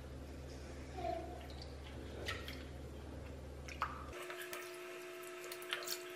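Faint splashing and dripping of hot water as a wooden spoon stirs and presses mozzarella curd against the side of a pot, with a few light clicks. A steady low hum underneath cuts off about four seconds in.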